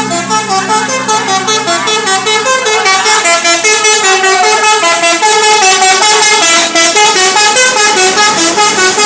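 Telolet basuri bus horn playing a fast tune of short notes, loud and continuous.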